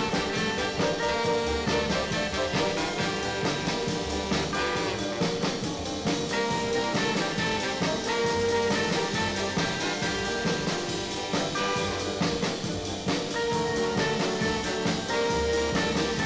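Background music: a jazz tune with brass and a steady drum beat.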